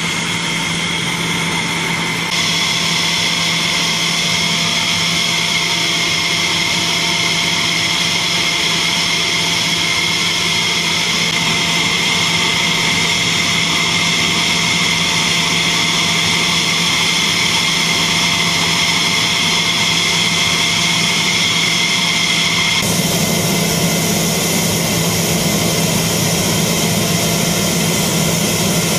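F-16 fighter's jet engine running steadily on the ground with a high whine over a low hum; the tone and mix change abruptly about two seconds in and again near the end.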